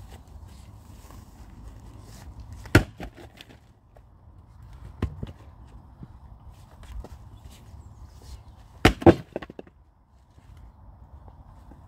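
A few sharp wooden knocks as split logs are handled and set up on a chopping block, the loudest a quick double knock about nine seconds in.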